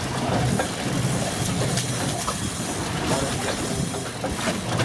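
Steady rumble of a small boat at sea: its Suzuki outboard motor running, mixed with wind and water noise.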